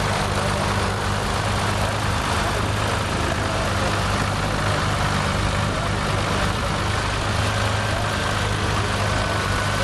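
Ford 4000 tractor engine running at a steady, even pace while ploughing, with a constant low hum.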